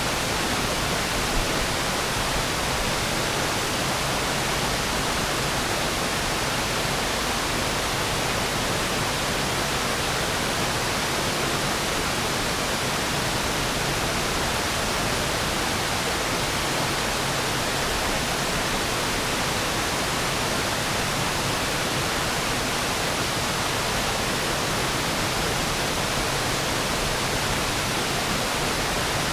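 Waterfall on a small river, water pouring and splashing steadily in an even rush of white noise.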